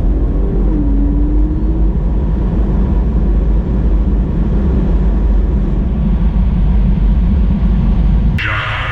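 Car accelerating hard down a drag strip: a loud, heavy low rumble of engine, road and wind noise, with a pitched note rising about a second in. The sound cuts off abruptly near the end.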